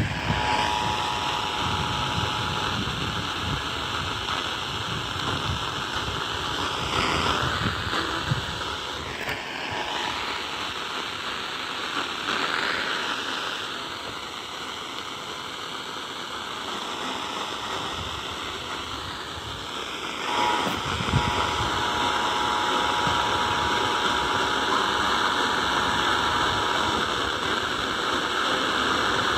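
Emergency Alert System two-tone attention signal (853 and 960 Hz together) sounding through heavy radio static. It runs for about eight seconds from the start, then sounds again from about twenty seconds in for six or seven seconds. The static hiss is the loudest thing throughout.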